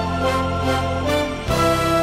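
Background music: sustained instrumental chords, with a change to a new chord about one and a half seconds in.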